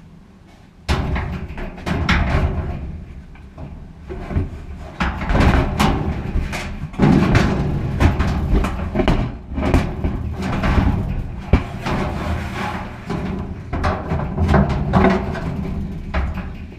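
Irregular knocks, clunks and scraping of sheet-metal dryer parts being handled during reassembly, starting about a second in.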